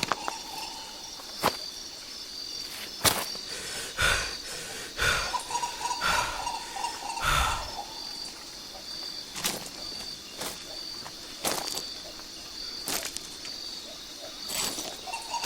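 Jungle ambience: a high insect call pulsing steadily throughout, with scattered sharp snaps and clicks. In the middle come four heavier thuds about a second apart.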